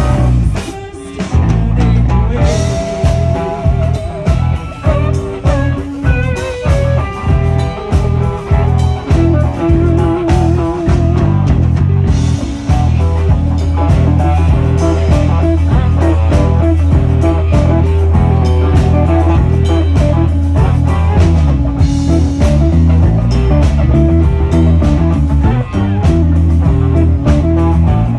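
Live band playing amplified blues-rock: an electric guitar plays a lead of held, wavering notes over a steady bass and beat, with no singing.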